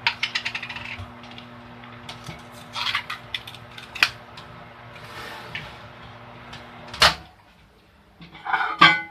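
Microwave oven humming steadily while it heats, under quick clicks and knocks of kitchen utensils. About seven seconds in a loud clack comes and the hum cuts off, as when the microwave door is popped open. Then a short clatter.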